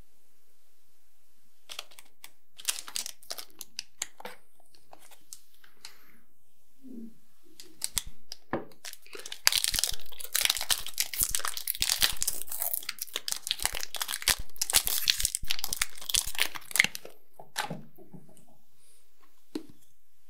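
Chocolate bar wrapper being crinkled and torn open close to the microphone: scattered crackles at first, then a long stretch of loud, dense tearing and crinkling through the middle, tapering off near the end.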